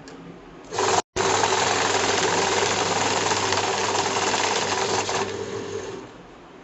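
Banknote counting machine running: its motor and rollers give a fast, dense mechanical whir with a low hum. The sound starts just under a second in, cuts out for a split second, then tails off and stops about five to six seconds in.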